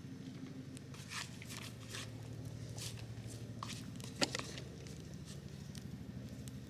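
Wood campfire crackling, with scattered sharp pops, the loudest about four seconds in, over a steady low hum.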